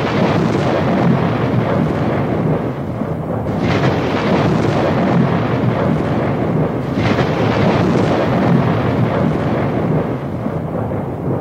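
Deep, thunder-like rumbling intro sound effect that swells three times, about three and a half seconds apart, and eases slightly near the end.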